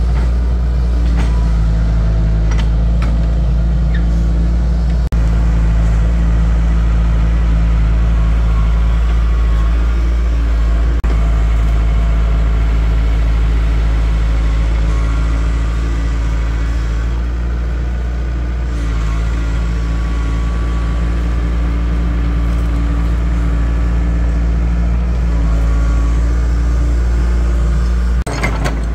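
A heavy engine running steadily at an even speed, with a few sharp clanks near the end.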